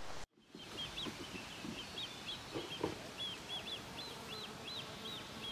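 A small bird singing a run of short, high chirps. They come irregularly at first, then quicker and evenly spaced, about four a second, in the second half, over faint outdoor background noise.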